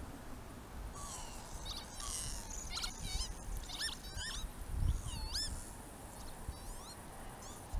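Northern lapwings calling at night: a run of short, slurred, wheezy whistles that rise and fall, several overlapping. A low rumble runs beneath, swelling briefly about five seconds in.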